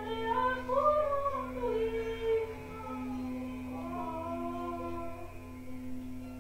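Wordless singing, a voice gliding slowly up and down in long held notes over a steady low drone. The singing is strongest in the first couple of seconds.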